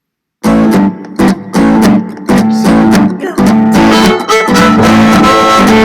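Upbeat song intro with strummed guitar and a steady, even beat, starting suddenly about half a second in.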